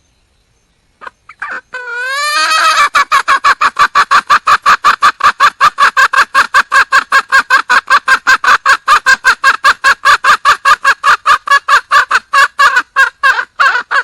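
Junglefowl hen calling for a mate: a few notes and a short wavering call about a second in, then a long, fast, even run of rapid repeated notes.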